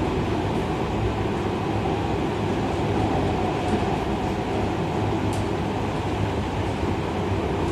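Seibu 30000 series electric train running steadily, heard from inside a passenger car: an even rumble of wheels on rail and running gear, with a few faint light clicks.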